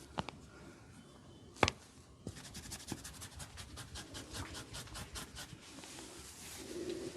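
Barber's hands working on a client's head during an ASMR head massage. Two sharp clicks at the start and a louder smack about a second and a half in are followed by a fast, even run of light taps lasting about three seconds.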